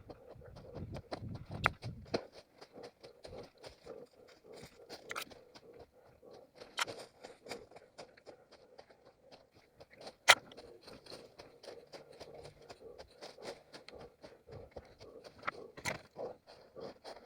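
Footsteps of a runner crunching and scraping through forest-floor litter, in a dense, irregular patter. A few sharper cracks stand out, the loudest about ten seconds in.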